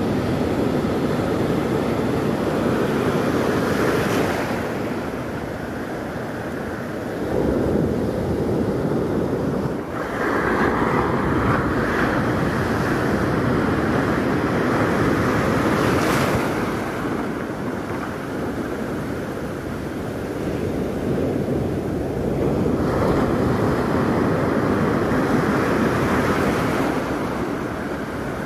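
Sea waves rushing and wind buffeting the microphone aboard a small motor boat, with the boat's engine running underneath. The noise swells and eases every few seconds.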